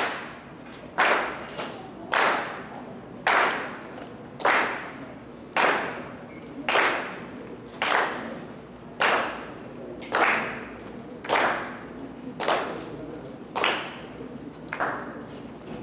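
A sharp clap-like beat repeating steadily about once a second, about fourteen hits in all, each ringing out in a large hall while children dance to it.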